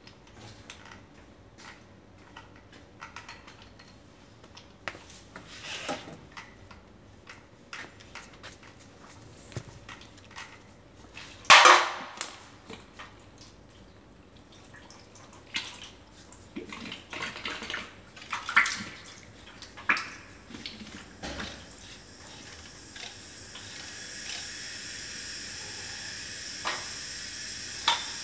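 Metal clinks and scrapes of a Suzuki TL1000R front fork leg being taken apart over a drain pan of oily solvent, with some liquid splashing in the pan. The loudest clink comes a little before halfway. A steady hiss builds up over the last few seconds.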